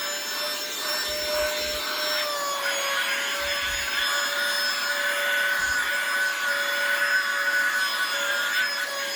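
Handheld vacuum cleaner running steadily, a constant motor whine with hiss, as its nozzle is worked over a dog's coat to suck up deer ticks. A few dull low bumps come from the nozzle being moved against the dog.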